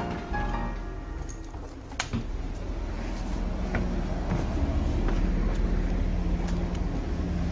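City bus engine running, a steady low rumble, with a sharp click about two seconds in.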